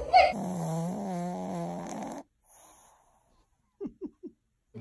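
A wavering pitched sound for about two seconds, then, after a short gap, three short snores in quick succession from a pug asleep on its back.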